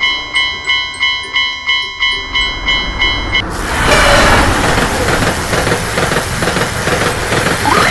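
Japanese level-crossing warning bell ringing its steady 'kan-kan', about three strikes a second, until about three and a half seconds in, when a passing train takes over with a loud rush of running noise and wheel clatter over the rail joints.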